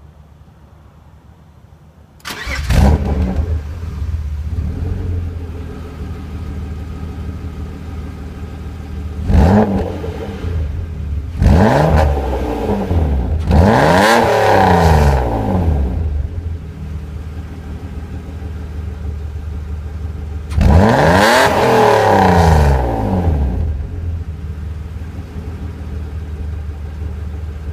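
Exhaust of a 1994 BMW E36 with a Magnaflow stainless midpipe and catalytic converter and a stock muffler whose internals are starting to break up. The engine starts about two seconds in and settles to a steady idle. It is then revved: a short blip, two longer revs, and later one more long rev, each time dropping back to idle.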